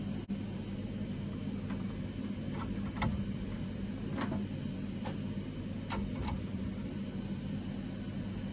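A steady low hum with a few light clicks and taps scattered through it.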